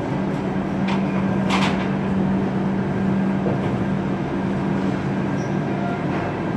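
Railway station ambience: a steady low mechanical hum and rumble, with a few short knocks.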